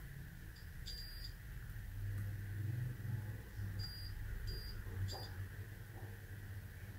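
A digital multimeter gives four short, faint high beeps as its probes touch points on a laptop motherboard: one about a second in and three close together around four to five seconds. A low steady hum runs underneath.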